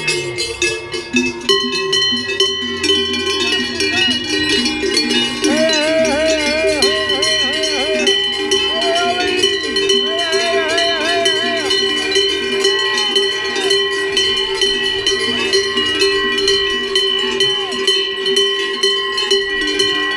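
Many cowbells shaken rapidly and ringing without a break, spectators' bells cheering on the racers.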